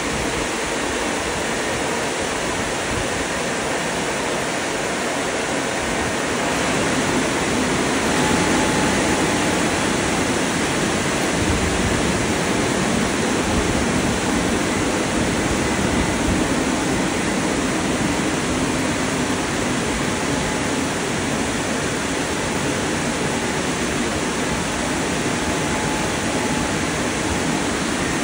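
Gantry car wash's drying blowers running, a steady rush of air that grows a little louder about six seconds in, with a faint steady whine over it.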